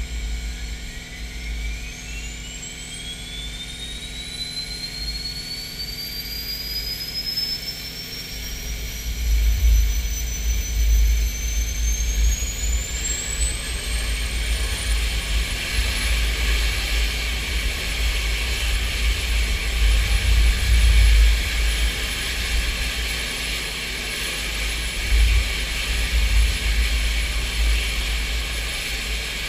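SEPECAT Jaguar's Rolls-Royce Turbomeca Adour turbofan starting: a whine rises steadily in pitch over about fifteen seconds, then holds as a steady high whistle as the engine settles at idle. Under it a low rumble grows louder about eight seconds in.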